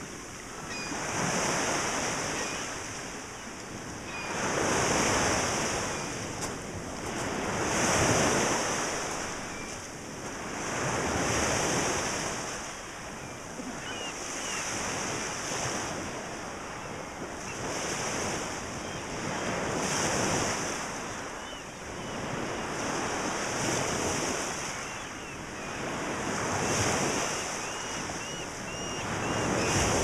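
Small waves breaking and washing up a gravel and pebble shore in a steady rhythm, one surge every three to four seconds. Faint gull calls come now and then, with a short run of them near the end.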